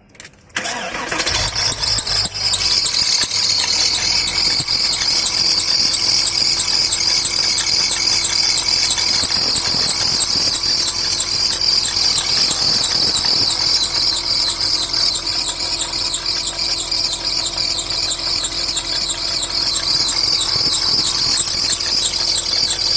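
Porsche 986 Boxster flat-six engine started about half a second in, then idling with a loud, high-pitched squeal that pulses rapidly and evenly over the engine note: the engine noise the car has come in for, its source not yet found.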